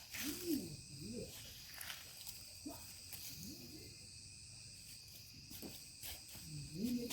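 The strange sound heard from underground: short, low warbling calls that rise and fall in pitch, in groups about three seconds apart, over a steady high insect drone.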